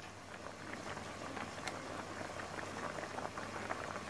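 Pork belly pieces boiling in broth in a wide pan: a steady stream of bubbling pops that gets busier and a little louder about half a second in.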